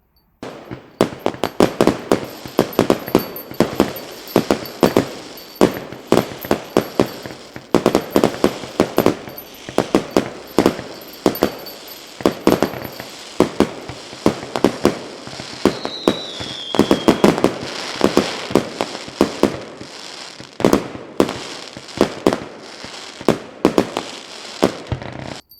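Fireworks going off in a rapid, continuous string of bangs and crackles, with a brief falling whistle about sixteen seconds in.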